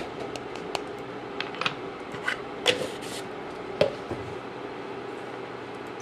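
A spoon knocking and scraping against an enamel pot in a run of irregular clicks as the vegetables and milk are stirred, stopping about four seconds in. A steady low hum runs underneath.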